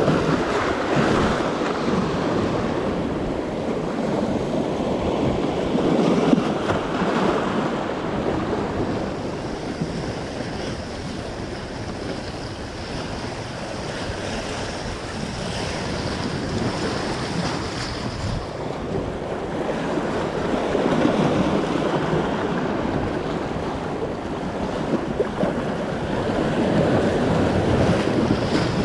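Ocean waves breaking and washing against a rock jetty, swelling and fading every few seconds, with wind buffeting the microphone.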